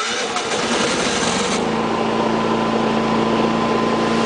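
Yamaha inverter generator being remote-started: the electric starter cranks for about a second and a half, then the engine catches and settles into a steady run.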